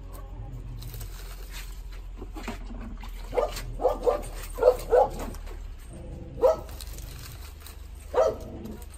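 A dog barking: about seven short barks, some in quick pairs, starting about three seconds in.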